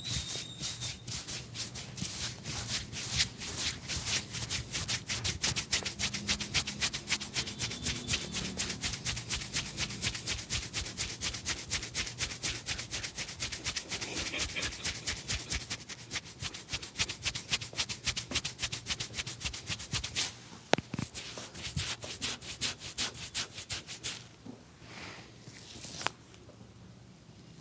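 Hands massaging a person with quick, rhythmic rubbing strokes on skin and hair, several strokes a second. The strokes thin out later on, with one sharp click, and stop near the end.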